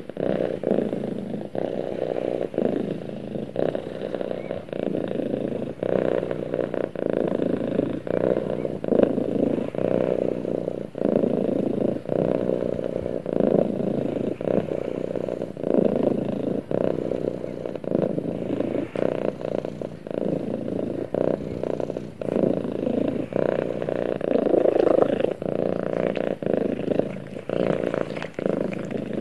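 Domestic cat purring steadily close to the microphone while being stroked on the head.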